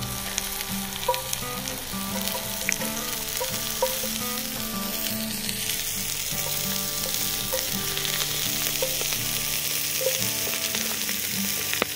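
Chopped onion and garlic frying in oil in a cast-iron camp oven over a wood fire: a steady sizzle, with a few light clicks of a knife or utensil on the pot.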